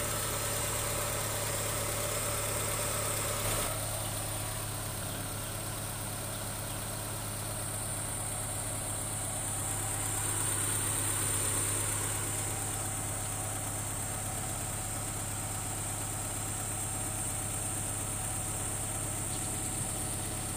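1996 Honda Civic's VTEC four-cylinder engine idling steadily, run to bleed air pockets out of the cooling system after a coolant change.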